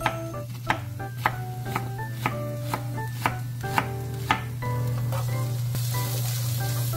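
Chef's knife chopping onion on a wooden cutting board, sharp chops at about two a second. About five seconds in this gives way to the onion sizzling in a frying pan as it is stirred with a wooden spatula.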